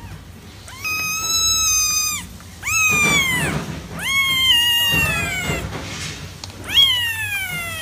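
A young kitten meowing: four high-pitched mews of about one to one and a half seconds each, the first held level and the later ones sliding down in pitch.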